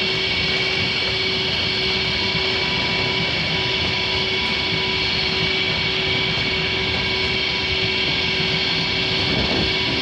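Deutsche Bahn Intercity train rolling past close by: a steady rush of wheels on rails with a steady whine of several high tones over it.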